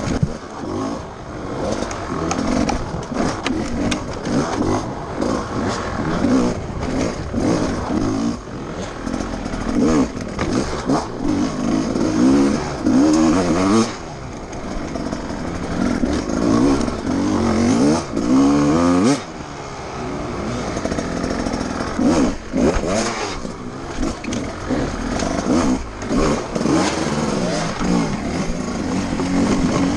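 GasGas enduro motorcycle engine heard from the rider's seat, revving up and dropping back over and over as the throttle is worked. A long rising rev cuts off sharply about nineteen seconds in.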